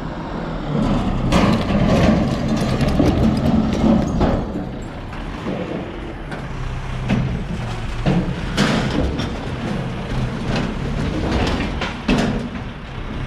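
Garbage truck's engine running close by, a steady low hum, with irregular clanks and knocks throughout; it is loudest for a few seconds near the start.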